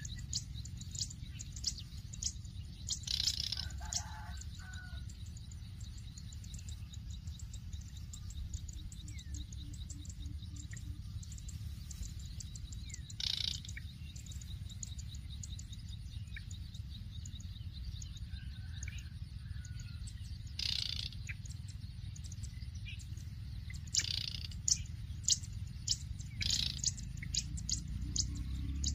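Birds chirping in many short, high calls, with a few louder calls now and then, over a steady low hum.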